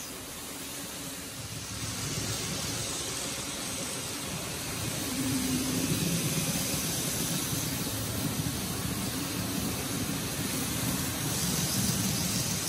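N gauge model trains running on the track: a steady whir of small motors and wheels on the rails that grows louder as a freight train passes about six seconds in, and again as an express passes near the end.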